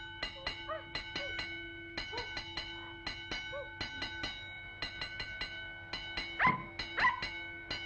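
Cartoon orchestral score playing quick groups of short staccato notes over a held chord, with a puppy's small whimpering cries. Near the end come two sharp yips about half a second apart.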